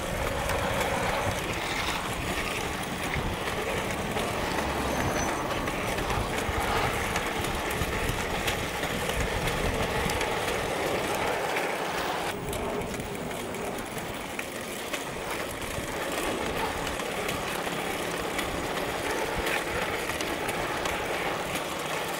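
Homemade electric monowheel rolling along a tarmac street: steady rolling and motor noise. About halfway through, the low rumble drops away.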